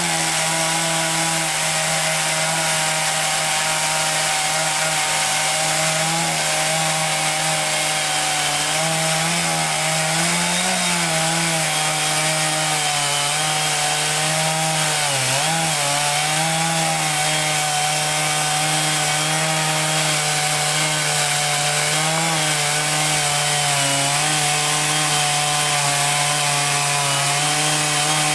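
Sawmill running steadily as its blade cuts through a log, with a continuous engine tone over a high hiss of cutting. The engine pitch dips briefly a few times as it takes load.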